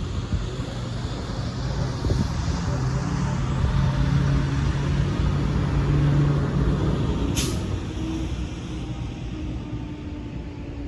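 Distant EMD SW1500 switcher locomotives' diesel engines droning as the train approaches, swelling and then easing off, with a brief sharp hiss about seven seconds in.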